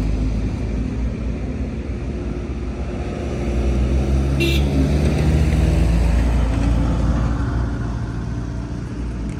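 Road traffic: car engines and tyres going past in a steady low rumble that swells about four to six seconds in as a vehicle passes. A short high chirp sounds about four and a half seconds in.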